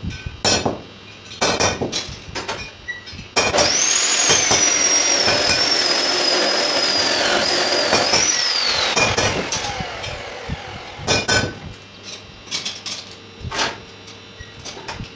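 Flat steel bars clinking and clanking as they are set down and shifted on a welded steel grill frame on a concrete floor. A few seconds in, a power tool motor starts up with a high whine, runs for about five seconds, then is switched off and winds down with a falling pitch.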